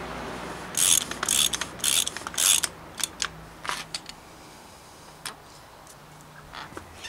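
Ratchet wrench clicking in four quick strokes about half a second apart, then scattered light clicks and taps.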